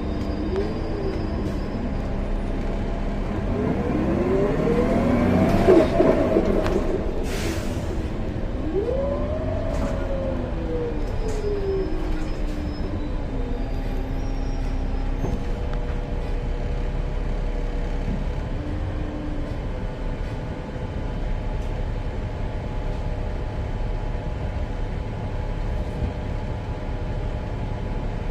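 2014 Gillig Low Floor BRT Plus CNG bus running with a steady low rumble. Its engine and drivetrain pitch rises and falls twice in the first half, and a short hiss of air comes about seven seconds in.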